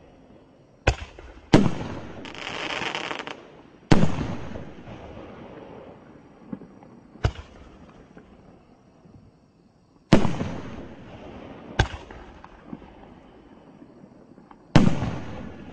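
A multi-shot high-altitude fireworks cake firing large aerial shells: about seven sharp bangs at uneven gaps, each trailing off in a long echo. A hissing crackle follows one of the early bursts for about a second.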